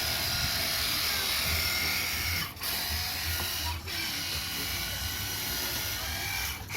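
Battery-powered pressure washer running and spraying water: a steady small-motor whine under a spray hiss, broken by brief pauses twice.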